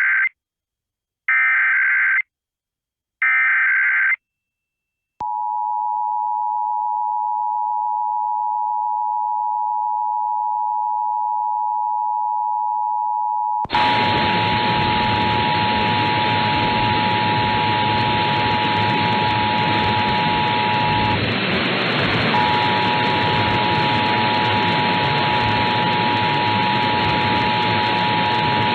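Emergency Alert System tones. First the end of the SAME digital header: about a second of warbling data bursts, twice, a second apart. Then from about five seconds the steady two-tone attention signal sounds. From about fourteen seconds a loud hiss of static runs under it, and the tone drops out briefly near the middle.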